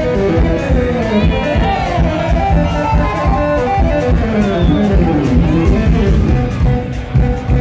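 Live jazz-fusion band playing loud electric guitars, bass, keyboards and drums, recorded rough from right next to the stage. A melodic run falls in pitch through the middle.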